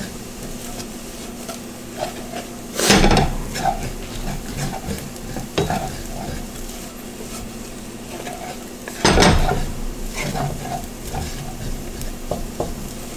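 Egg fried rice sizzling in a wok on fairly high heat while a wooden spatula stirs and scrapes it around the pan. There are two louder bursts of stirring, about three seconds in and about nine seconds in.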